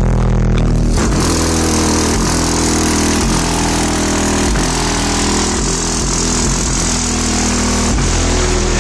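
Two 13-inch JL Audio W7 subwoofers in a dual ported box playing a rap track loud, with deep bass notes changing every second or so. A harsh noisy layer comes in over the bass about a second in and stays.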